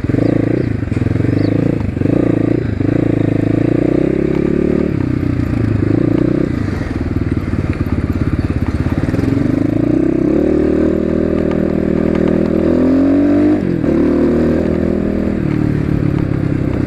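Asian Beast 250 dirt bike's engine and exhaust, loud, under way. The pitch rises as it speeds up and drops back several times: a long climb two-thirds of the way in ends in a sharp drop near the end.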